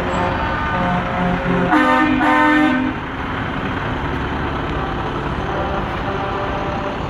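Vehicle horn honking twice in quick succession about two seconds in, over the steady low rumble of parade vehicles running past.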